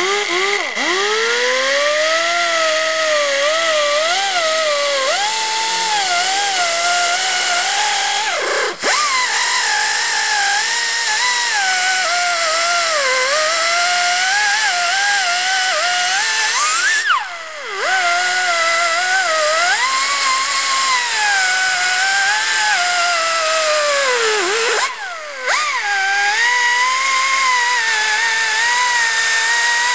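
Pneumatic die grinder with a small sanding disc running at high speed, its whine wavering in pitch as it is pressed into the plastic while grinding. It is let off and spun back up three times: about a third of the way in, just past halfway, and again later on.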